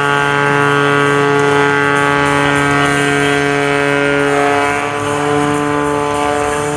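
MXS-RH aerobatic plane's 370-horsepower Sky Dynamics engine and Whirl Wind propeller at full power, a steady drone whose pitch eases down slightly about four and a half seconds in.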